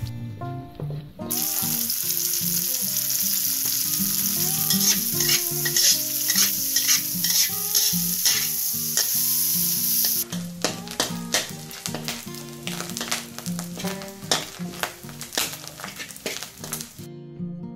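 Oil sizzling in a wok as sliced shallots, garlic and chillies are stir-fried, with a metal spatula scraping against the wok. About ten seconds in, the sizzle drops away and the spatula strokes stand out as separate scrapes and clicks.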